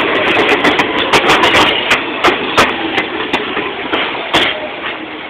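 R46 subway train rolling past and slowing as it enters the station: a steady wheel-on-rail rumble that gradually fades, with sharp clacks from the wheels over rail joints that come further apart as it slows.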